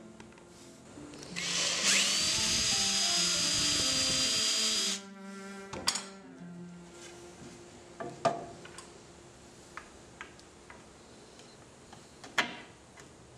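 Cordless drill spinning up with a rising whine, then running steadily for about three seconds as a twist bit bores a bolt hole through a wooden bench slat, stopping about five seconds in. A few sharp knocks follow as the slats are handled.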